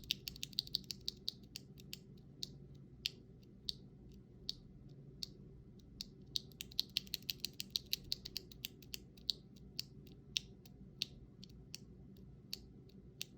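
Mechanical keyboard with Akko CS Lavender tactile switches being typed on: sharp key clacks in quick runs near the start and around the middle, with slower single key presses in between.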